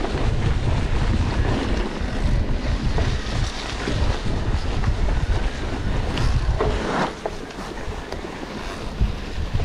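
Wind buffeting the microphone of a camera carried on a mountain-bike ride, with a steady low rumble, easing a little about seven seconds in.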